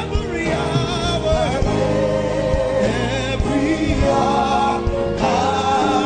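Gospel worship music: voices singing with vibrato over sustained keyboard-like chords and a steady bass beat.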